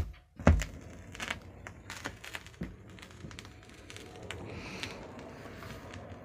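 Vinyl record surface noise played through hi-fi speakers: a low thump about half a second in, then faint crackle and scattered clicks over a steady hiss, typical of a stylus running in the lead-in groove.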